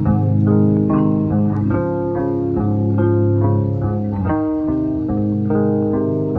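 Background music: plucked guitar notes over a bass line.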